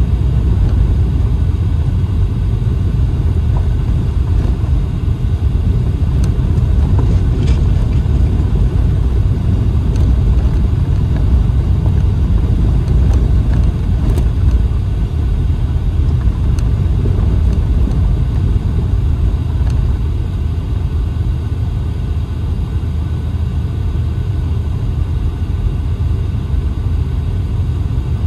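Steady low rumble of a car driving over a rough gravel road, heard from inside the cabin, with a few faint clicks and knocks.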